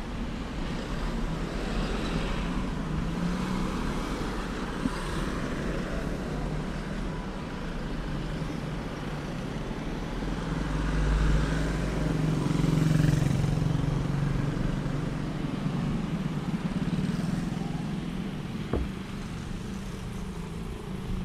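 Road traffic: cars and motorcycles driving past with engine hum and tyre noise, swelling as one vehicle passes close a little past halfway through.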